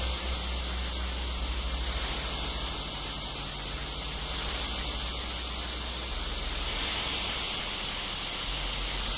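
Synthesized noise from the Alien Noise Instrument software synthesizer: a steady hiss-like noise over a low drone, its tone shifting near the end.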